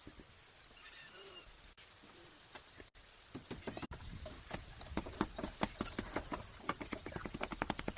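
A rapid, irregular run of light knocks and clicks, starting about three seconds in after a faint stretch.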